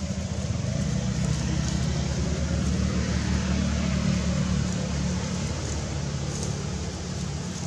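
A motor vehicle engine running close by, a steady deep hum that grows louder over the first few seconds and eases off near the end.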